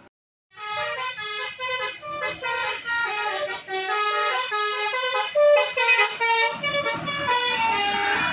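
Bus telolet horn, a multi-tone horn playing a quick melody of short stepped notes, cutting in about half a second in.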